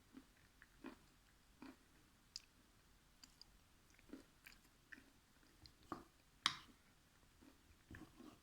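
Soft, close-up eating sounds: chewing with wet mouth clicks and lip smacks every half second or so, one sharper click about six and a half seconds in.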